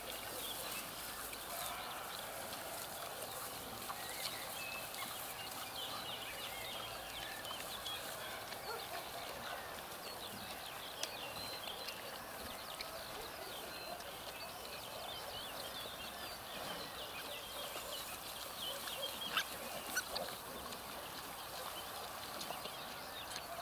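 Two-week-old piglets squeaking and squealing in short, high bursts as they jostle to suckle at a sow lying in straw, over the rustle of the straw, with a few sharp clicks later on.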